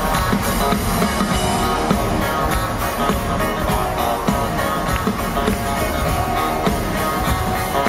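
A live rock band with drums and electric guitar playing loud, heard from within an arena crowd on a camera's microphone.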